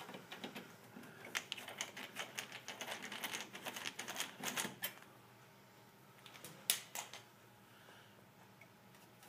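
Phillips screwdriver turning a screw out of a sheet-metal plate: a rapid run of small metallic clicks and scrapes for about five seconds, then one sharp click a little later.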